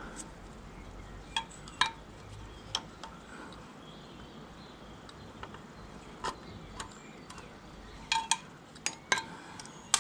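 Small steel brake-latch parts and tools clinking against the tractor's brake linkage as they are worked into place by hand: scattered sharp metallic clinks, with a quicker cluster of them near the end.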